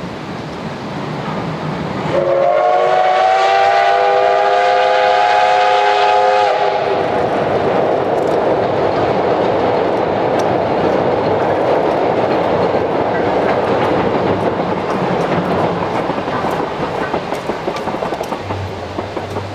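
Steam locomotive whistle blowing a chord of several tones for about four seconds, starting about two seconds in. The train then runs on across the steel truss bridge with a steady rumbling rush that fades near the end.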